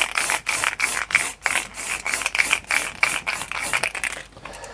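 Aerosol can of gold spray paint hissing in rapid short bursts, about four a second, stopping about four seconds in.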